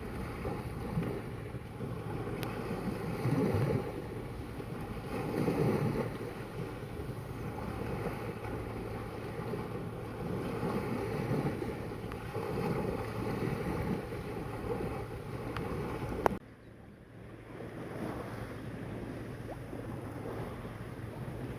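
Sea water washing and swelling, with wind buffeting the microphone; the wash surges a few times. About three-quarters of the way through there is a click and the sound drops suddenly, then builds back up.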